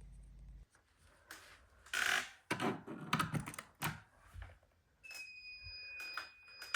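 Handling clicks and knocks with short hissing bursts as a smoke detector is set off for a test, then about five seconds in a steady high-pitched electronic alarm tone switches on and holds.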